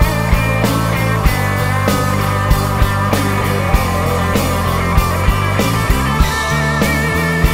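Live rock band playing: electric guitars and bass over a drum kit, with drum hits landing throughout.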